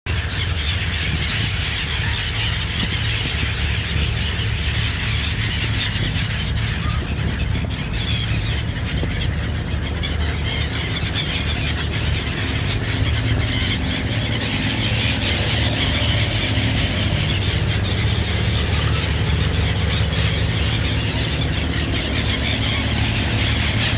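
A large flock of birds calling constantly in shrill, squealing cries, over the steady low drone of boat engines.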